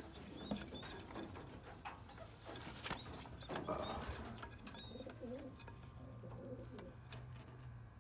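Domestic racing pigeons cooing low in a nest box, with the cooing clearest in the second half. Scattered sharp clicks and rustles of handling in the first half, all over a steady low hum.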